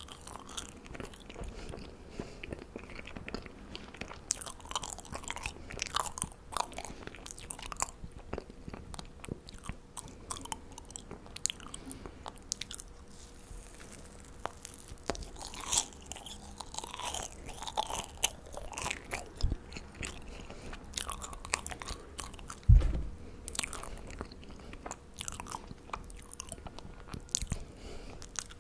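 A person biting and chewing marshmallows, with many small clicks and smacks of the mouth. One dull thump about 23 seconds in is the loudest sound.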